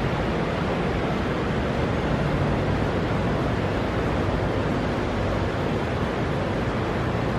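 Steady rushing of running water from a waterfall on a model-railroad layout, pouring down into the layout's river.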